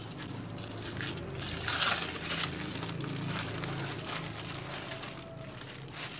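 Frozen sugarcane juice ice and syrup being handled in a basin, with wet sloshing and scraping noises that are loudest about two seconds in, over a low steady hum.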